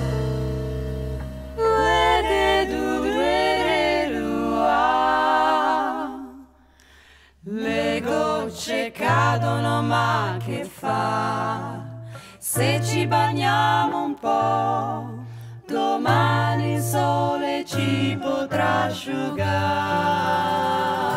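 Female vocal trio singing in close harmony with vibrato, in 1930s Italian swing style. The music nearly drops out about six seconds in, then the voices return in short phrases over a plucked double bass line.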